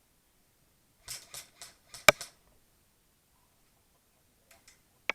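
A few short rustling noises, then a single sharp click, the loudest sound, about two seconds in, and another sharp click near the end.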